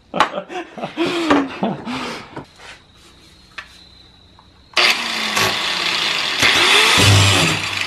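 A man laughing, then after a short quiet spell a handheld power tool cuts in suddenly and runs steadily, cutting into the seam of a plywood dinghy hull.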